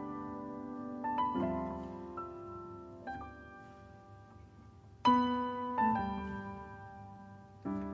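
Slow solo piano intro: chords struck every second or two and left to ring and fade, the loudest about five seconds in.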